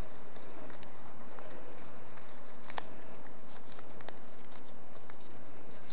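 Light handling of the reel's paper and plastic accessories, a sticker sheet and its envelope, with soft rustles and a few faint clicks. The sharpest click comes about three seconds in.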